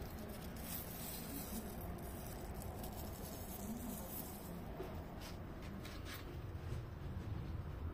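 Faint scattered rustles and light handling noises, as a hand brushes plant leaves and moves the phone, over steady background noise.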